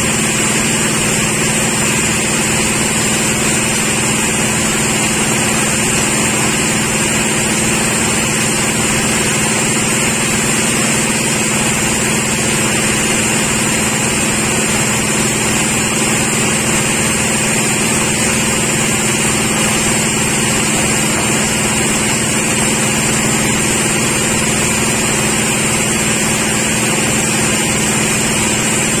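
Sawmill machinery running with a steady, unchanging hum, with no breaks or changes.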